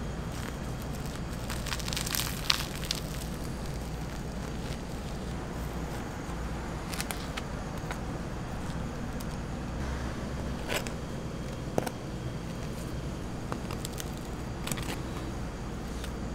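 Steady low background hum, with scattered scrapes and light clicks as a knife scoops cream cheese from a steel tray and spreads it onto a waffle.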